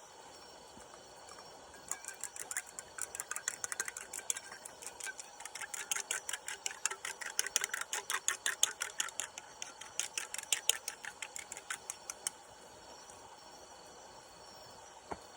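Chopsticks beating a raw egg in a small bowl: a quick, even run of clicks, about six a second, that starts about two seconds in and stops after some ten seconds.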